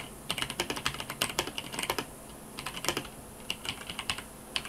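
Typing on a Razer BlackWidow Tournament Edition mechanical keyboard with its silent, non-clicky switches: quick runs of key clacks with short pauses between them, two brief pauses about two and three seconds in.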